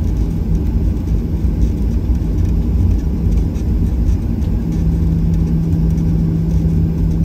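Cabin noise inside a Boeing 737-800 as it taxis: the CFM56-7B engines idling under a steady low rumble of the rolling aircraft. A steady low hum joins about two-thirds of the way through.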